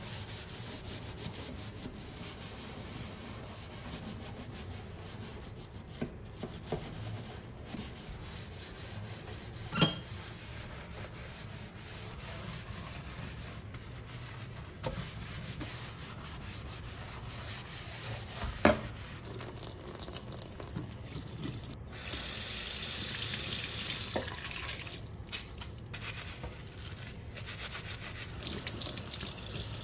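A sponge scrubbing a soapy stainless-steel sink, with two sharp knocks and a brief two-second hiss about two-thirds of the way through.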